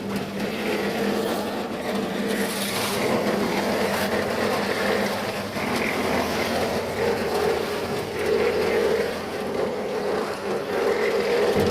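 Portable half-bag concrete mixer running steadily, its motor giving a constant hum.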